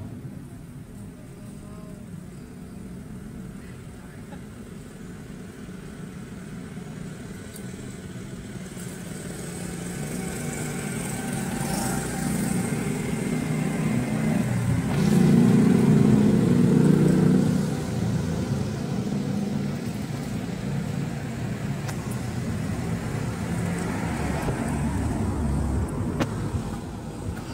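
A motor vehicle's engine passing by: it grows steadily louder to a peak around the middle, then fades back down.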